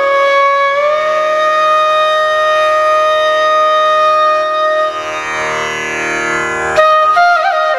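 Instrumental background music in an Indian classical style. A melody holds one long note, a rising sweep follows, and a new ornamented melodic phrase starts near the end.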